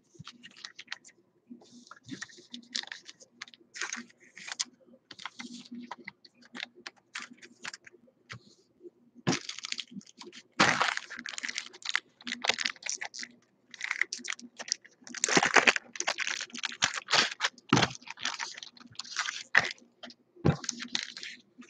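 2016 Donruss Optic baseball cards being handled, flipped through and set down on a tabletop: an irregular run of light clicks, snaps and slides of card stock, busier in the second half.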